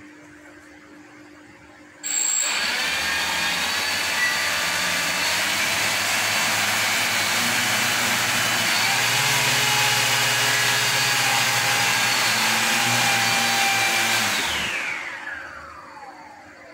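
Electric thruster motors of a homemade PVC-pipe underwater drone, running out of the water. They start suddenly about two seconds in and run steadily for about twelve seconds, then spin down near the end, their whine falling in pitch.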